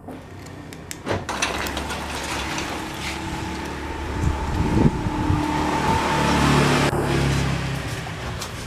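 A car engine starts about a second in and runs at idle close by, growing louder in the middle and easing off near the end.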